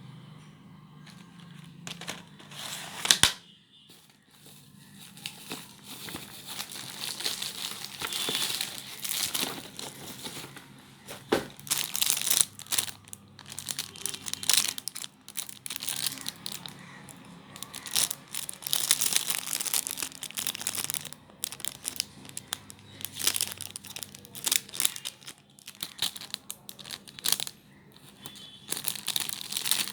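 Plastic packaging being handled during unboxing, crinkling and tearing in irregular bursts, with a sharp loud crackle about three seconds in.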